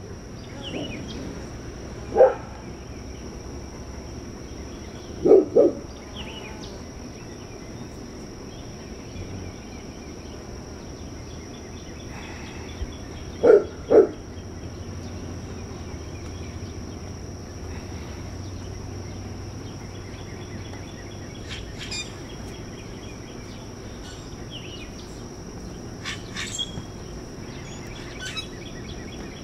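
A dog barks a few short times, about two seconds in and then twice in quick pairs, over birds chirping and a steady high-pitched insect hum.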